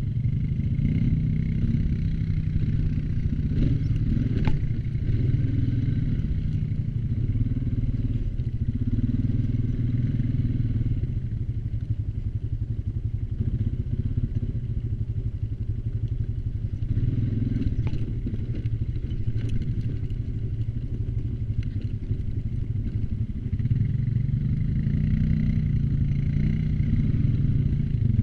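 ATV engine running while riding, its note rising and falling with the throttle, easing off through the middle and picking up again near the end. A few brief sharp clicks are heard over it.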